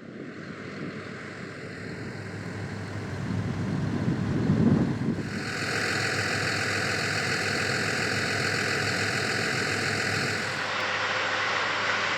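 John Deere S680i combine harvester running, a steady engine and machinery drone with hiss. It grows louder over the first five seconds, then holds steady and brighter, changing slightly about ten seconds in.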